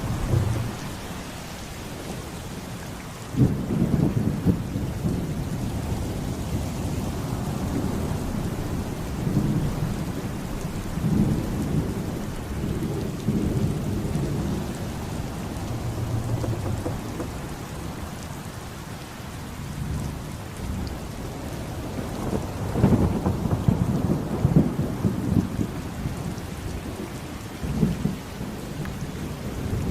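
Steady rain with rolling thunder. A thunderclap breaks in suddenly about three seconds in and rumbles on, another long rumble swells a little past the middle, and a short one comes near the end.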